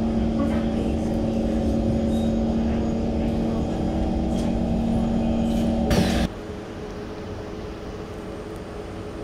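Steady hum inside an SMRT C151 train carriage standing at the platform, then a sharp clunk about six seconds in, after which the sound drops to quieter station platform ambience.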